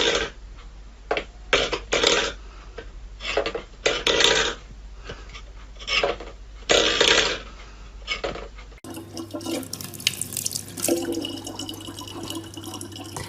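Water splashing in about a dozen short, irregular bursts, then a steady low hum with fainter running water.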